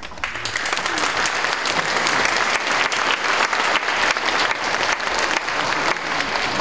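An audience applauding: dense, steady clapping that swells over the first second and keeps up.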